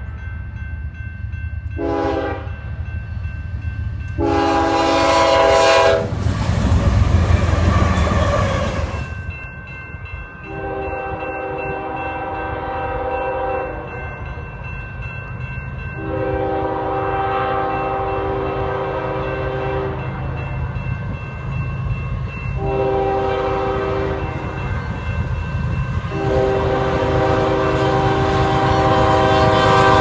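Nathan Airchime K5HL five-chime locomotive horn on GE freight locomotives, blowing a multi-note chord. A short blast and a long blast come first, then a loud rushing noise for a few seconds. Then comes a second sequence of long, long, short, long blasts, the grade-crossing signal, over the low rumble of the train.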